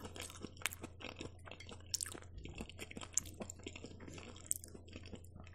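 Close-miked chewing of fried mushrooms: quiet, irregular small wet clicks and smacks of the mouth.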